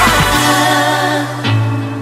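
Pop song on the soundtrack, with a sung line trailing off: the beat stops shortly in, leaving held bass and chords, a new chord comes in about one and a half seconds in, and the music begins to fade.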